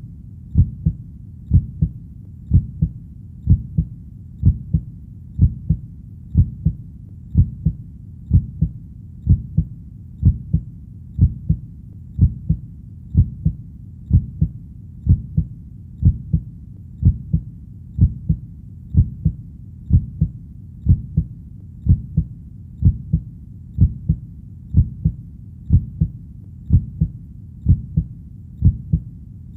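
Heartbeat: a steady rhythm of paired low thumps (lub-dub), a little over one beat a second, with a steady low noise between beats.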